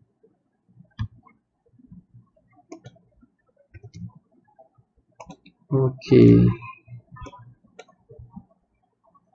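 Irregular computer mouse clicks and keyboard keystrokes, with a sharper click about a second in.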